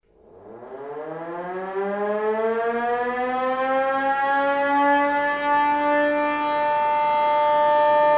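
Siren winding up from silence, its pitch rising steadily over about six seconds and then holding a steady wail.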